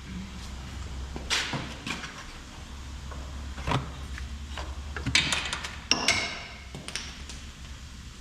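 Scattered knocks and metallic clinks of shock-mount hardware and tools being handled, over a low steady hum. There is a quick cluster of clinks about five seconds in, and a short metallic ring about six seconds in.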